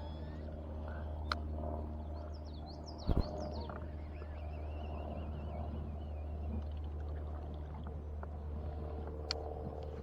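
Birds singing and chirping over a steady low hum. A single sharp knock about three seconds in is the loudest sound, with a few faint clicks.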